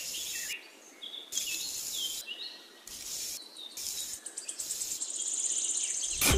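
Birds chirping in short calls over insects trilling in patches of high hiss that start and stop, with a fast, even insect trill near the end.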